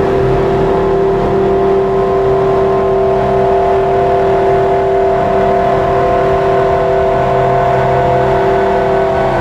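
Slowly evolving electronic drone from a synthesizer and looper rig: several steady held tones layered over a grainy hiss.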